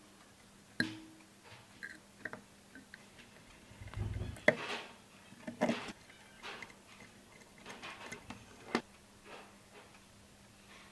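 Scattered small metallic clicks and taps as fingers handle a miniature brass four-stroke model engine and unscrew its spark plug, over a faint steady hum. A sharper click comes about a second in, and a low bump with a louder click comes midway.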